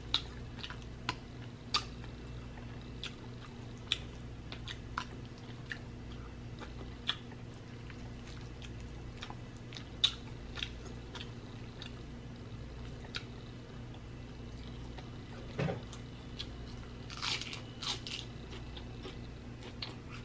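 Close-miked eating sounds: chewing of sticky barbecued beef rib meat and iceberg lettuce, with wet mouth clicks and smacks scattered throughout, over a faint steady low hum.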